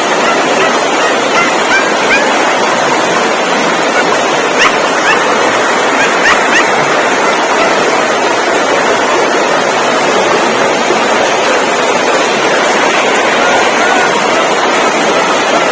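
A puppy whimpering and yelping in short, thin, high squeaks scattered throughout, over a loud, steady rushing noise.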